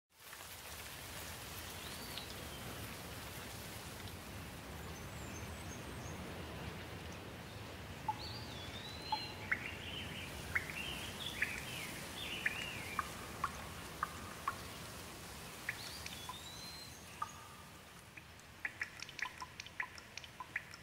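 Steady rain falling, with birds calling now and then through it. Near the end the rain eases and separate drops splash in quick, irregular drips.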